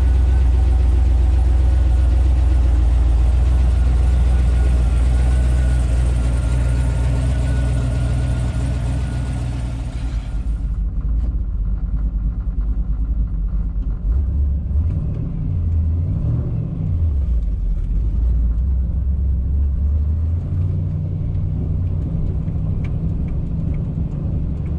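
A modified 1999–2007 GM pickup's engine idles steadily. After a cut about ten seconds in, it is heard muffled from inside the cab as the truck drives off, its pitch rising and falling as it pulls away.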